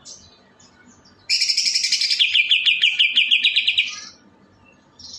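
Songbird singing: soft high chirps, then about a second in a loud, long trill of rapid notes that drops partway to a lower, fast string of repeated notes and stops after about two and a half seconds.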